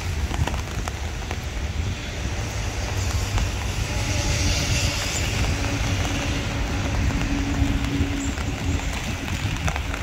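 Rainstorm: a dense, steady hiss of rain with a deep low rumble underneath. A faint steady hum rises out of it from about four to nine seconds in.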